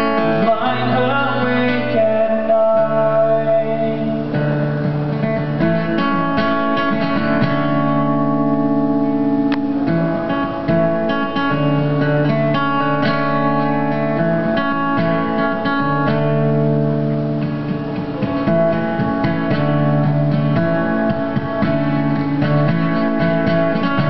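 Acoustic guitar played live in an instrumental passage of a song, strummed and picked with chords changing every second or two.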